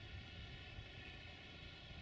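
Faint, steady low rumble of a distant 060-DA (LDE2100) diesel-electric locomotive hauling a freight train.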